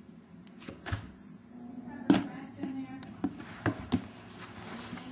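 Sharp taps and knocks on a cardboard shipping box, about seven spread unevenly, the loudest about two seconds in.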